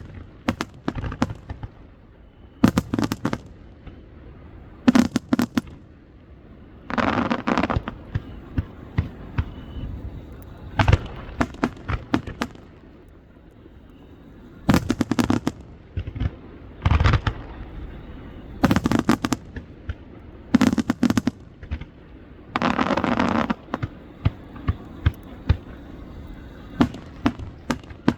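Aerial fireworks shells bursting in a show: clusters of sharp bangs every couple of seconds, with two runs of rapid, dense popping about a second long.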